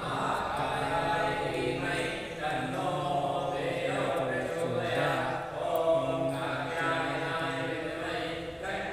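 Voices singing a Hindu aarti hymn together, with long held notes.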